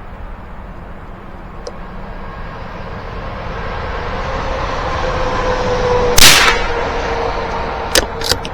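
A single .22 rifle shot about six seconds in, over a steady rushing background noise that grows louder up to it. A few sharp clicks follow near the end.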